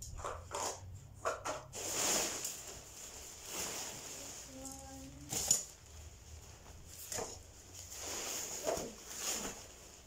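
Rustling and swishing of a kids' play tent's fabric being lifted and shaken out, with light clicks from its thin flexible poles early on, and one sharp knock about five and a half seconds in.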